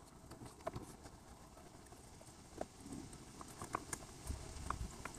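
Faint, irregular small clicks and taps as gloved fingers press a new rubber valve cover gasket into the groove of a plastic valve cover and shift the cover on cardboard, with a low rumble coming in near the end.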